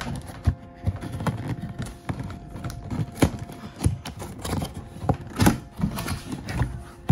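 A cardboard figure box and its plastic packaging being handled and pulled apart by hand: irregular knocks, clatters and rustles against a tabletop, the loudest knocks about half a second, three seconds and five and a half seconds in.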